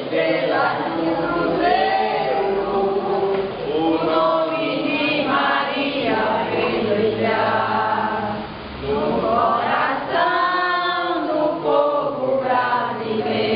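A congregation singing a hymn together, women's and men's voices mixed.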